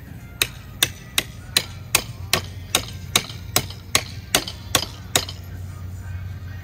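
Hammer striking a steel brace pin to drive it through a wooden fence post: about a dozen even blows, roughly two and a half a second, that stop about five seconds in.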